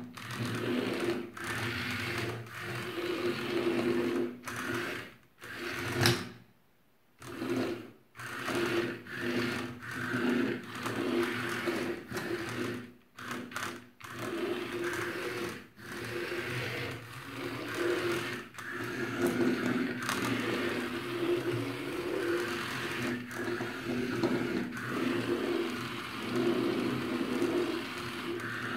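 Small yellow plastic-geared DC motors of an Arduino robot car whirring in repeated bursts, starting and stopping every second or two as the car drives and turns, with short clicks between runs.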